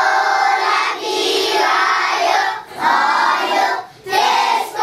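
A group of young children singing together, with two brief pauses between phrases, about two and a half seconds in and near four seconds.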